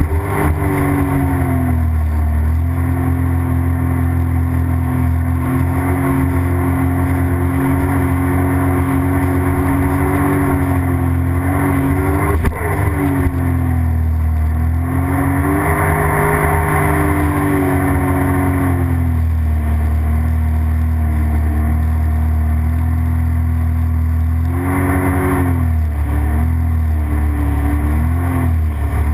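Sea-Doo GTX jet ski running at cruising speed, its engine pitch dipping and rising a few times with the throttle, most clearly about halfway through and near the end, over the rush of water and spray at the bow.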